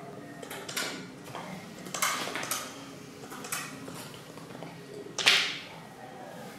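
Short rustles and soft taps from hands and clothing as people sign at a table. The loudest is a sharp rustle about five seconds in.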